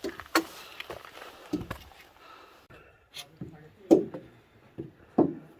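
A hiker's footsteps on a trail: uneven thuds about a second apart, the loudest about four seconds in.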